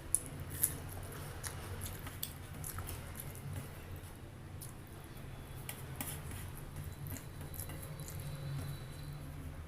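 A person chewing a mouthful of food close to the microphone, with frequent small wet clicks and smacks.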